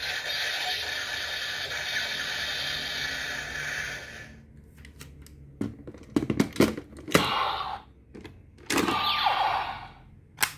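Hard plastic parts of a Bandai DX Zero-Two Driver Unit toy being unclipped and pulled apart: a run of sharp clicks and clacks, with a louder snap about seven seconds in and another at the end. Before that, a steady hiss-like sound stops about four seconds in.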